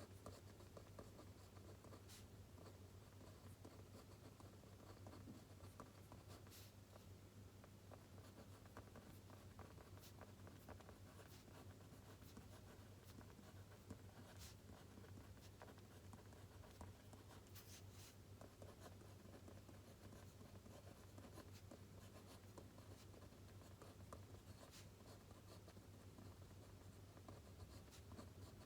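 Pen writing on paper: faint, continuous scratching with scattered light taps, over a low steady hum.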